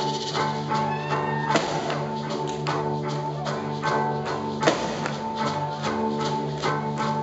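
Live rock band playing a slow, droning piece: sustained guitar and keyboard notes over sparse drum and cymbal hits, with one loud hit a little before five seconds in.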